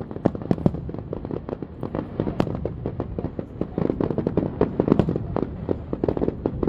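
Fireworks going off in a rapid, continuous barrage: many sharp cracks and booms overlapping, several a second, with no let-up.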